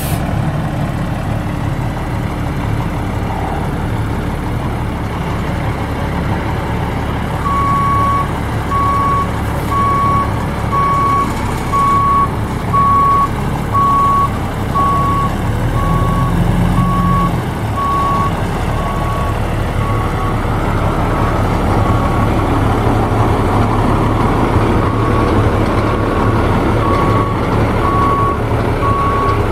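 Cummins L10 inline-six diesel engine of a 1988 International F2574 mixer truck running. From about eight seconds in, a reversing alarm beeps steadily at about one beep a second.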